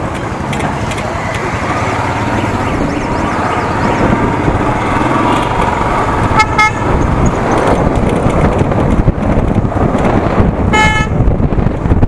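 Motorcycle running along a city road, its engine and the wind on the microphone growing louder as it picks up speed. A vehicle horn beeps twice, about six seconds in and again near the end.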